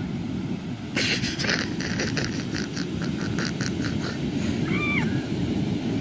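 Breaking ocean surf and wind rumble steadily on the microphone. From about a second in, a quick run of about a dozen sharp scuffing strokes comes at three or four a second. A short high call rises and falls near the end.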